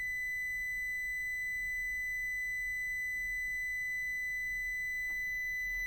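ANENG M109 multimeter's beeper sounding one continuous, steady high-pitched beep.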